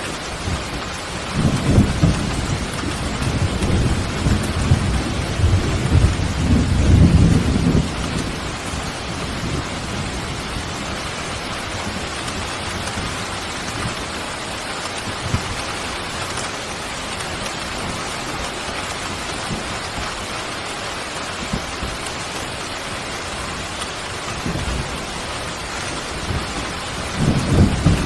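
Steady heavy rain, with a long, deep rumble of thunder rolling for about six seconds starting a second or two in, and another rumble beginning near the end.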